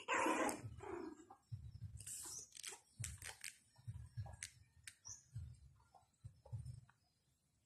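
Japanese Spitz puppies play-fighting on a tile floor: a brief puppy vocalisation right at the start, then scuffling with scattered small clicks.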